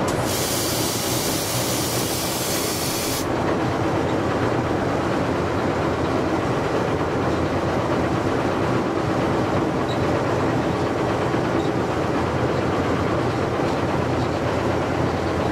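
Ruston & Hornby diesel locomotive running steadily, heard from its cab, its engine drone mixed with wheel and rail noise as it moves along the track. Near the start a sharp hiss of air sounds for about three seconds and cuts off suddenly.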